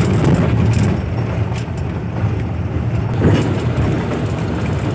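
Bus engine and road noise heard from inside the passenger cabin while travelling: a steady low rumble with a few short knocks and rattles.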